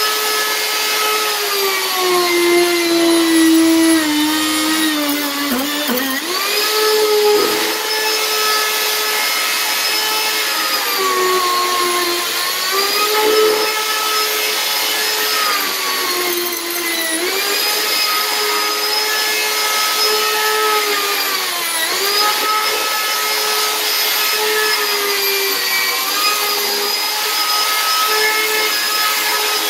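A Ryobi handheld router running on a flattening sled, its bit cutting across the wood; its steady high whine sags in pitch several times as the bit takes load, and recovers between passes.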